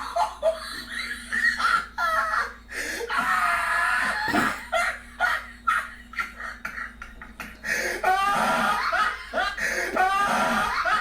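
People laughing, mixed with snatches of speech, with a long burst of rapid laughter near the end.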